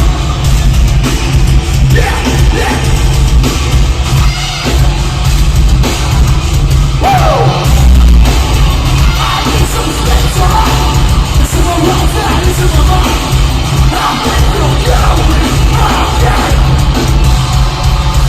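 Loud live nu-metal band performance: heavily distorted guitars, pounding bass and drums, and yelled vocals, as recorded from the crowd.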